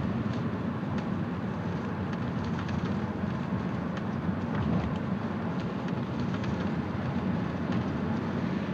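Steady city traffic and road noise heard from inside a moving taxi, with faint scattered clicks and knocks over it.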